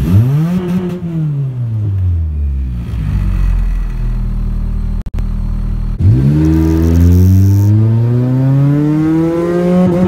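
2000 Honda Prelude's H22A4 2.2-litre VTEC four-cylinder with intake, header and exhaust mods, heard from inside the cabin. It gives a quick rev that falls back toward idle. About six seconds in, the car launches from a stop and the engine pitch climbs steadily under full throttle through first gear.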